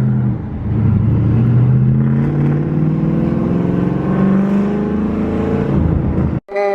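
2005 Mustang GT's 4.6-litre V8 with aftermarket cams, running through Carven R-series mufflers, accelerating under load: the exhaust note dips briefly about half a second in, then climbs steadily in pitch for about five seconds before cutting off suddenly near the end.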